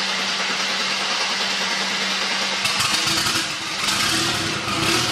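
Mercedes 300TE's straight-six engine being cranked by the starter motor at about 150 rpm. About three seconds in it catches and settles into a low idle near 400 rpm. This is a cold start of an engine running on LPG under Megasquirt control.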